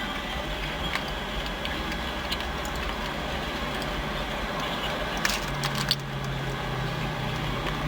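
Steady low rumble of a car cabin with the vehicle running. A few light clicks come about five seconds in, and a low steady hum joins soon after.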